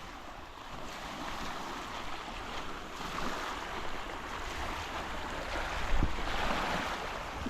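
Ocean surf washing on the shore, with wind buffeting the microphone and a brief low thump about six seconds in.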